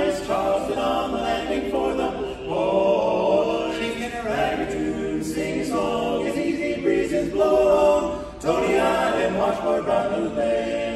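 Barbershop group singing a cappella in close harmony, in sustained sung phrases with short breaks between them.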